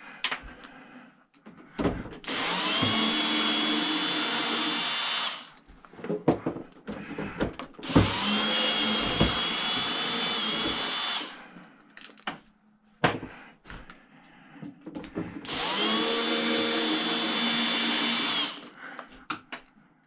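Power drill backing screws out of a cash register's case: three runs of about three seconds each, the motor whine rising as it spins up, with clicks and knocks of handling the metal parts between runs.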